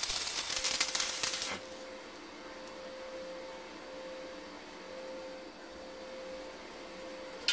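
Electric arc welding: a loud, steady crackle and sizzle from the welding arc that cuts off suddenly about a second and a half in as the arc is broken. A faint steady hum remains after it.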